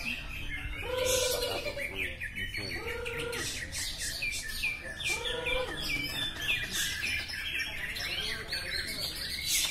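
Several caged green leafbirds (cucak ijo) singing at once: a dense, unbroken run of fast, high chirps and trills. A lower call repeats about every two seconds.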